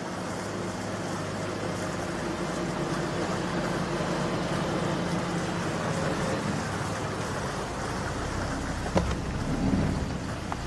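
Fountain water splashing steadily, with a vehicle engine running low underneath. A short sharp click about nine seconds in.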